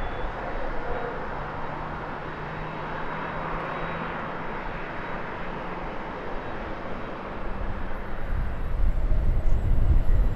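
Jet engine noise of an Airbus A320neo with Pratt & Whitney geared turbofans, climbing out after takeoff: a steady, even rush. Near the end a louder, deep rumble swells in.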